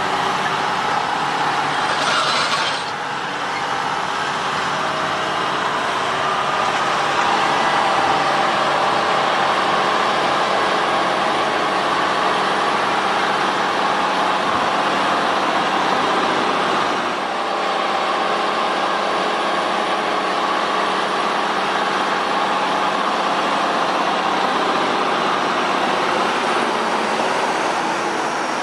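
Large diesel farm machinery running steadily under load, a continuous engine and machinery drone with a brief hiss about two seconds in.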